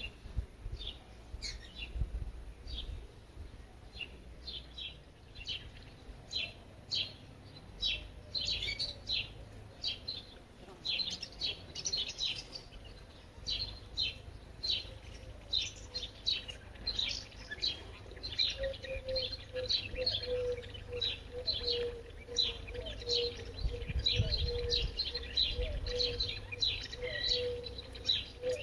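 Birds chirping outdoors: a dense run of short, high chirps, several a second. About two-thirds of the way in, a steady hum joins them.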